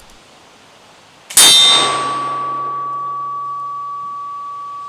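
A .50 calibre flintlock rifle with a coned muzzle fires once toward the listener about a second in, a sharp, very loud shot. A single clear ringing tone follows and holds on, fading only slowly.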